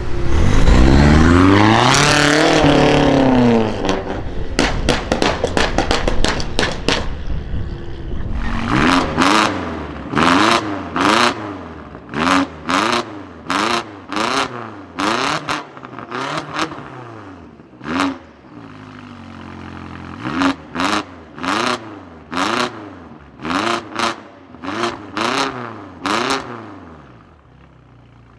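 Twin-turbo V8 of a 700 hp BMW X6M, breathing through an Akrapovic exhaust and G-Power downpipes. It opens with a loud full-throttle acceleration and a burst of exhaust crackles. Then comes a long run of quick throttle blips, about one a second, each followed by sharp crackles and pops, before it fades near the end.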